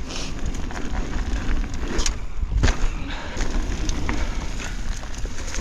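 2024 Pivot Switchblade mountain bike ridden fast down a rough trail: tyres rolling over dirt and rock, with several sharp knocks and rattles from the bike, the loudest about two and a half seconds in. Wind rumbles on the chest-mounted microphone throughout.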